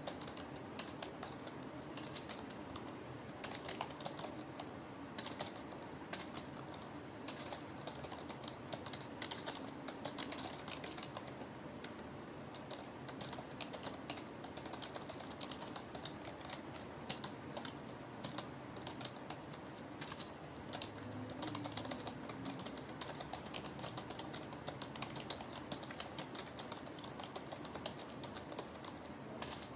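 Continuous typing on a computer keyboard: a quick, irregular run of key clicks with an occasional louder keystroke.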